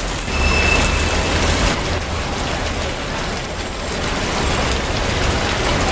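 Steady hiss of falling rain, with a low rumble underneath. A brief thin high tone sounds about half a second in and lasts about a second.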